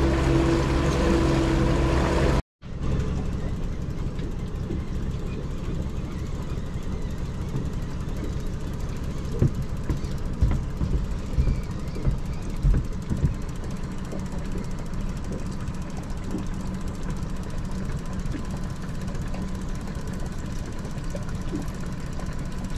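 Outboard motor running steadily at trolling speed on a small fishing boat, a low drone. About two and a half seconds in, the sound breaks off for an instant and comes back as a rougher low rumble, with a few knocks in the middle.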